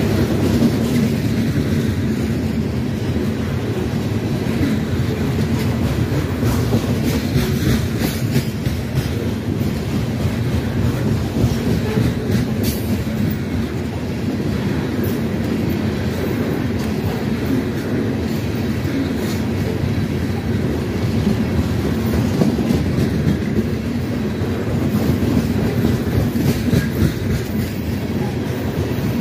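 Freight train's hopper cars rolling past at close range: a steady rumble of steel wheels on rail.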